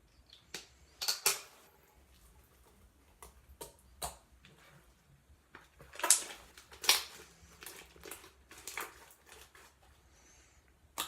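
Homemade slime being handled and squeezed by hand: irregular sharp clicks and short sticky pops, in clusters with pauses between.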